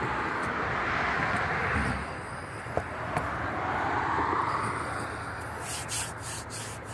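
Street traffic: vehicles passing, the tyre and engine noise swelling twice and fading, with a couple of light clicks in the middle and brief hissy bursts near the end.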